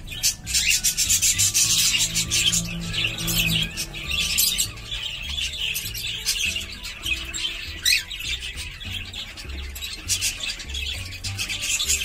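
Cockatiels chirping in quick, dense runs of high-pitched calls, loudest in the first few seconds, with a short rising call about two-thirds of the way through. Soft music plays underneath.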